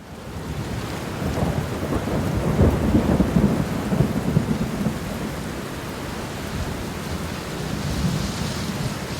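Steady rain with thunder rumbling low and heavy in the first half, swelling after a couple of seconds and then fading back into the rain.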